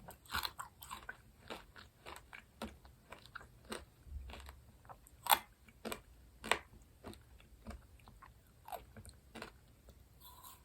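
Close-miked eating sounds: chewing with irregular wet clicks and crisp crunches as sweets are bitten and chewed, with two louder bites a little after the middle.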